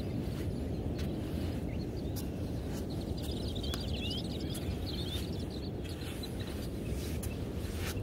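Steady low rumble of outdoor ambience with light footsteps on sand, and small birds chirping briefly about three seconds in.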